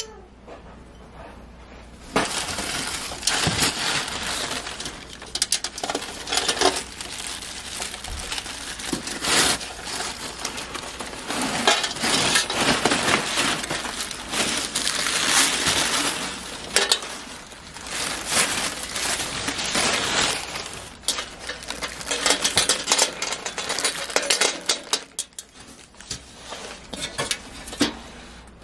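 Crumpled kraft packing paper rustling and crinkling as hands dig through a cardboard box, with a few light clinks of glass.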